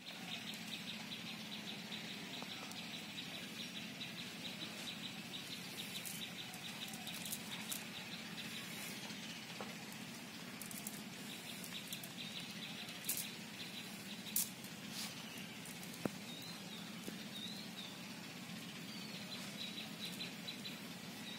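Outdoor pondside ambience of birds: a rapid high chirping trill that comes and goes, with a few short gliding bird calls after the middle. A few light sharp clicks sound over a low steady background hum.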